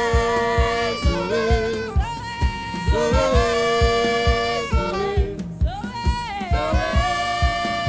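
Live gospel worship song: singers on microphones and a congregation singing long held notes over a band with a steady drum beat.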